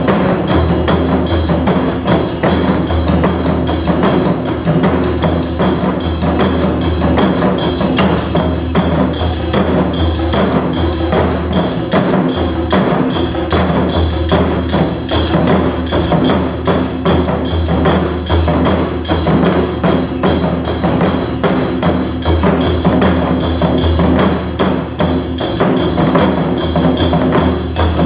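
Taiko drums playing a fast, dense rhythm of strikes in a modern-style arrangement, over steady held low tones, with no shouted calls (kakegoe).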